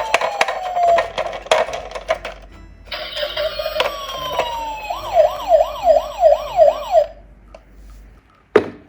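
Electronic toy sirens wailing down in pitch, then switching to a fast yelp of about three rises and falls a second that cuts off about seven seconds in, with plastic clicks and clatters throughout and a sharp knock near the end.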